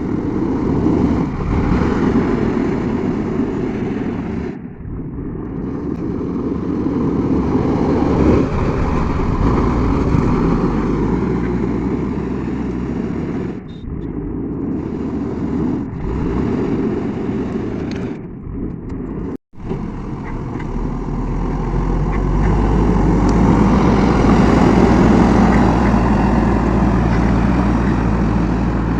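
Diesel engine of a JCB 3DX backhoe loader running under work, a steady heavy drone with a few brief breaks. It grows louder and deeper for several seconds past the middle, as the engine takes on more load.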